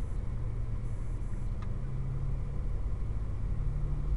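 Steady low mechanical hum heard from inside a car in an automatic car wash, between spray passes. A low tone in the hum steps up slightly partway through.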